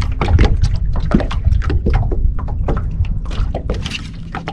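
Water lapping and slapping against a fishing boat's hull in quick irregular splashes, over wind rumble on the microphone, with a faint steady hum underneath.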